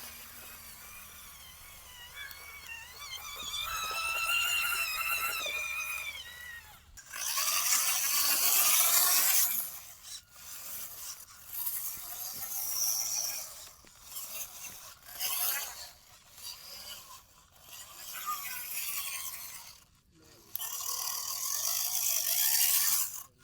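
Small electric motors and plastic gearboxes of radio-controlled model vehicles, whining up and down in pitch, then loud gritty bursts of gear rattle and scraping that start and stop abruptly.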